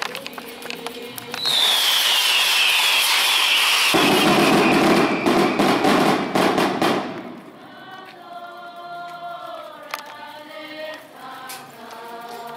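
Fireworks going off: a loud hissing, crackling stretch of about five seconds with a whistle falling in pitch through it. Then people singing.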